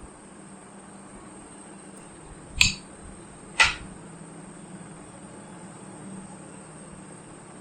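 Two sharp clicks about a second apart over a steady low mains hum and hiss, heard while an amplifier board is being tested on the bench.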